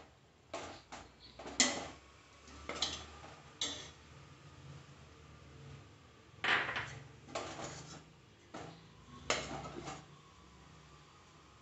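Metal spoon scraping and clinking against a stainless steel bowl while cooked rice is stirred, in a series of short, irregular strokes.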